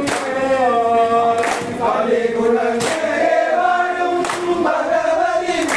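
A group singing a kaikottikkali clapping-dance song together, with a sharp hand clap from the dancers about every second and a half.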